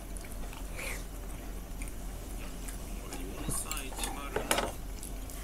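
Chopsticks and cutlery clicking against bowls and dishes while eating at a table, with a cluster of louder clinks about three and a half to four and a half seconds in.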